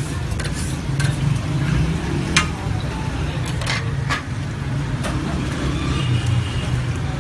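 Busy street-food stall ambience: a steady low rumble with scattered short clicks and clatters.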